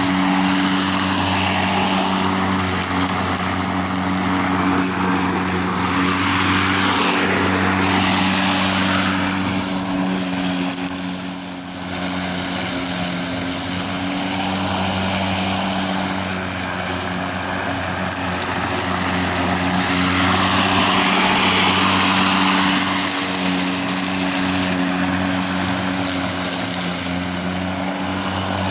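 Greenworks 40V 19-inch cordless lawn mower (model 25223) running steadily while mowing grass: its electric motor and blade give a steady hum of a few low tones under a rushing hiss that swells and eases. The sound dips briefly about twelve seconds in.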